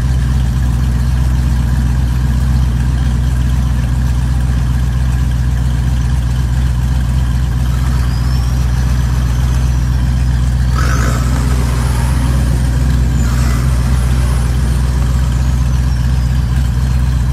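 Off-road 4x4 truck engines running steadily with a deep low drone. About two thirds of the way through there are two short noisy surges, and a faint high whine rises and falls.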